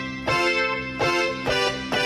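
Chords played on an electronic keyboard with a piano sound, struck again about every three-quarters of a second and ringing on over a sustained low note.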